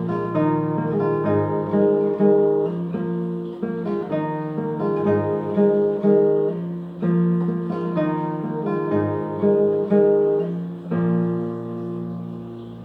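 Solo acoustic guitar played fingerstyle: a plucked melody over a bass line. About eleven seconds in, it settles on a final chord that rings out and fades.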